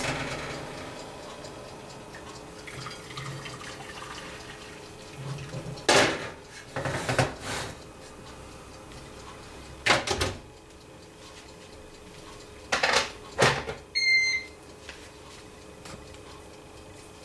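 Kitchen handling at an open oven: a hiss dying away at the start, then several sharp knocks and clanks of metal as the oven's baking pan and door are handled, with a short high squeak near the end.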